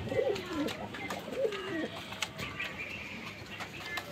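Fancy pigeon cooing: two drawn-out coos in the first two seconds, each rising and then falling in pitch, with scattered light clicks.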